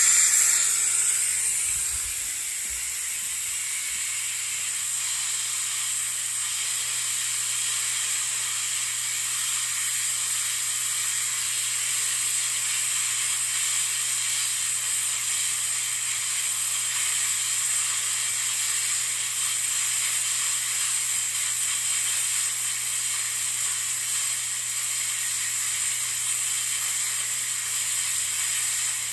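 Compressed air hissing out of an air compressor's tank through an opened valve, loudest at the start and then settling to a steady rush as the tank pressure drops.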